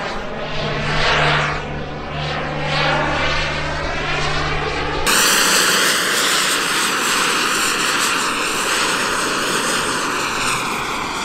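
Radio-controlled model jet aircraft flying a display, its engine running continuously with a sweeping, shifting tone as it passes. About five seconds in the sound changes abruptly to a brighter, hissier steady rush.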